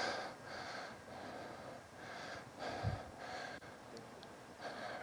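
Faint, quick breathing picked up by a clip-on microphone: a run of soft breaths about every half second, with a low thump about three seconds in.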